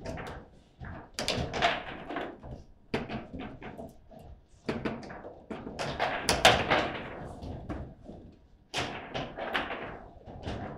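Table football in play: an irregular run of sharp plastic knocks and clacks as the ball is struck and passed by the figures on the rods, with the loudest cluster of hits about six and a half seconds in.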